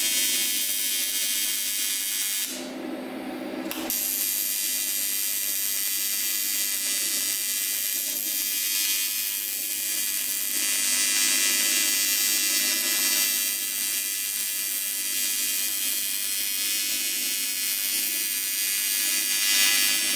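AC TIG welding arc on aluminum, a steady buzzing hiss. The torch is run without filler as a cleaning pass, to boil contamination out of a crack in an aluminum wheel rim. About two and a half seconds in, the arc breaks off for a second or so, then strikes again.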